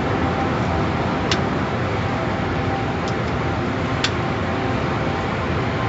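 Automatic tunnel car wash heard from inside the car: a steady rush of water spray and wash machinery on the body and windshield, broken by a few sharp clicks.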